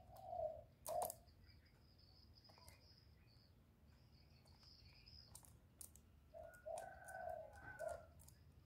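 Spotted dove cooing: one low coo phrase at the start and another about six and a half seconds in, with scattered sharp clicks and a faint high insect trill between them.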